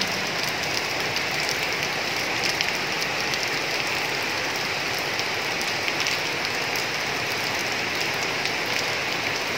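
Steady rain falling, an even hiss with many close single drops heard as small ticks.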